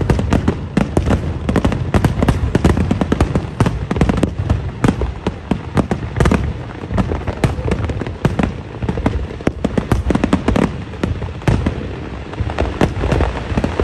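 Aerial fireworks display: a rapid, unbroken barrage of booming bursts and crackles, several a second.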